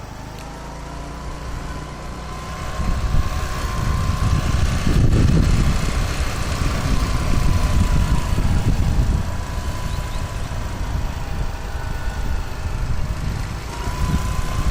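Motor scooter engine running while the scooter is ridden, heard as a loud, uneven low rumble that gets louder about three seconds in.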